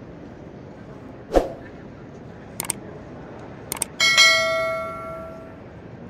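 Subscribe-button animation sound effects: a short pop about a second in, then two mouse clicks, then a bright bell ding about four seconds in that rings out over a second and a half.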